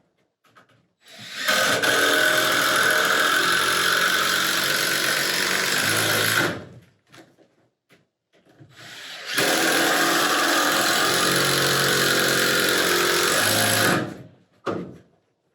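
Handheld power tool running twice, about five seconds each time: it spins up a little over a second in, runs steadily, winds down, and after a short pause runs again before stopping near the end.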